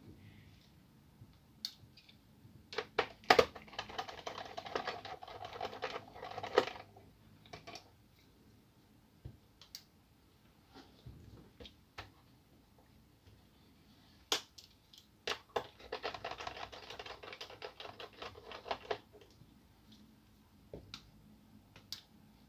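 A screwdriver working screws out of the chassis of an Asus K53SD laptop under its keyboard. There are two runs of rapid clicking and rattling, each about three to four seconds long, the first a few seconds in and the second about two-thirds through, with scattered single clicks between them.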